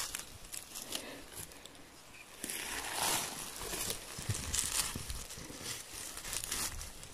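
Rustling and crackling of moss, dry leaves and twigs as a gloved hand searches through forest-floor undergrowth, in irregular strokes with a longer rustle about three seconds in.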